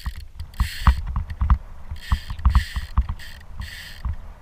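Small waves slapping against a plastic kayak hull: irregular hollow knocks with about five short splashy hisses in between.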